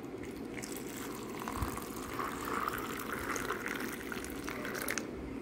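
Hot water poured in a thin stream into a glass tumbler of butterfly pea flower petals, filling it. The pouring rises a little in pitch as the glass fills and stops suddenly about five seconds in.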